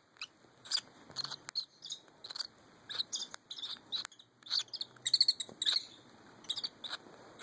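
Weaning baby lovebirds giving many short, high chirps in quick irregular bursts while they eat, with a few sharp clicks between them.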